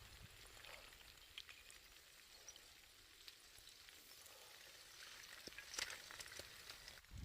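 Faint crackling and ticking of a lava flow, small irregular clicks over a soft hiss, with a brief busier patch of crackles near the end.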